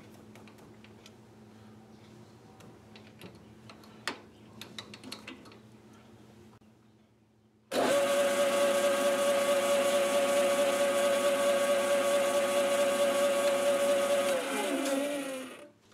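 Small metal lathe running: faint clicks and taps of handling at first, then the lathe's motor and spindle start abruptly about halfway in with a steady whine. Near the end it is switched off and spins down, its pitch falling until it stops.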